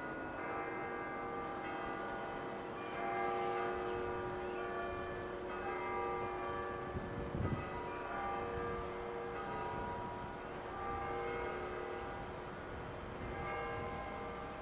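Church bells ringing a peal: many overlapping bell tones at different pitches that keep changing. Beneath them is the low rumble of an ICE 4 electric train approaching over the station points.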